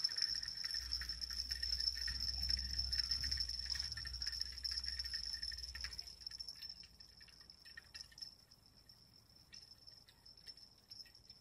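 Insects chirring in a steady high-pitched tone, with faint irregular clicks throughout. A low rumble under it for the first six seconds, then it fades and the chirring goes on more quietly.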